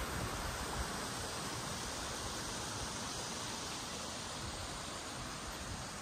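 Kiyotaki River's water rushing, a steady even noise.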